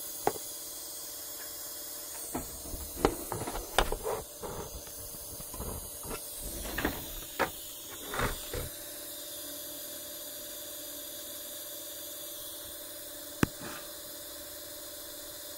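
Handling noise from an opened multimeter being moved about: a cluster of light clicks and knocks for several seconds, then one sharp click near the end, over a steady background hiss.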